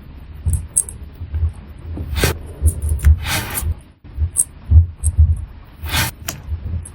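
Hand work at a watchmaker's bench: soft knocks and handling bumps, a few brief scraping or brushing strokes, and tiny high metallic clicks of small tools and parts.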